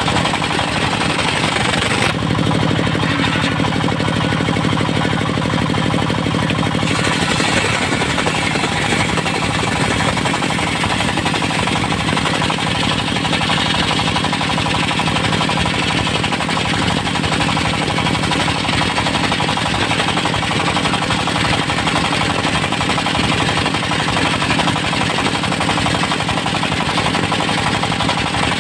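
Engine-driven circular sawmill running, its engine keeping a fast, steady knocking beat. The sound shifts in tone for a few seconds about two seconds in.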